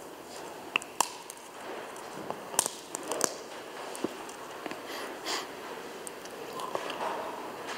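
Scattered small clicks, light knocks and cloth rustling as a priest handles the host and the metal communion vessels on the altar, picked up close by his clip-on microphone. The sharpest clicks fall in the first half.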